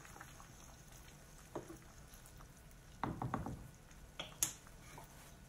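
Wooden spoon stirring a pot of steaming chicken noodle soup, with a few soft knocks against the pot and a quick cluster of them about three seconds in, then a sharp click a little after four seconds.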